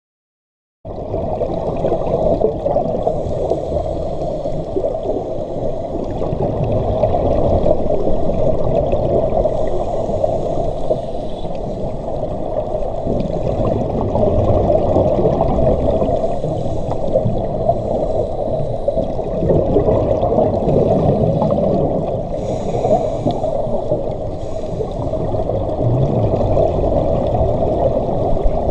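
Underwater sound heard through a waterproof camera housing: the muffled, continuous bubbling and gurgling of scuba divers exhaling through their regulators, with a dense rushing of water. It starts abruptly about a second in.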